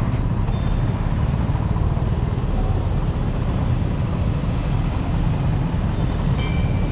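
Low, steady rumble of a small scooter engine riding slowly over rough dirt ground, mixed with street traffic noise; a short high beep sounds near the end.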